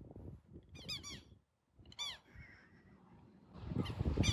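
Nesting birds giving short bursts of sharp, repeated alarm calls, about a second in, at about two seconds and again near the end, as they defend their chicks against a person on the path. A low rumble rises near the end.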